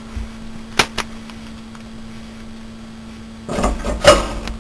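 Two sharp clicks, then a clattering, rattling burst of handling noise a few seconds later that ends in a sharp knock, over a steady low hum.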